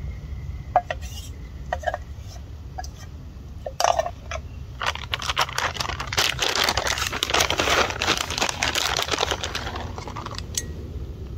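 A few light clicks and taps, then a plastic food packet crinkling for about five seconds as it is handled and opened.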